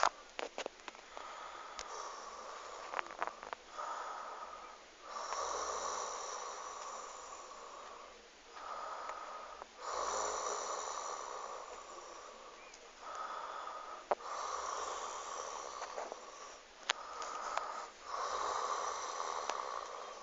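A woman snoring in her sleep: a rough, noisy snore comes on each breath and fades again, regularly about every four to five seconds. A few brief sharp clicks fall between the snores.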